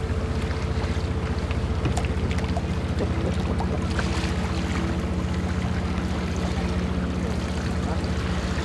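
A motor vessel's engine running steadily, a low hum with a fast, even throb.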